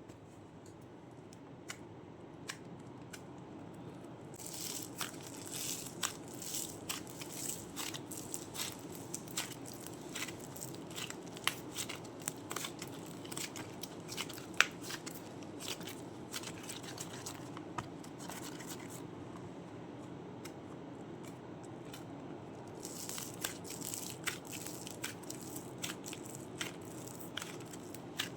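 Crunchy clay being crushed and broken apart, giving off many crisp crackles and snaps. The crackling is thick for long stretches and thins out to scattered clicks for a few seconds past the middle.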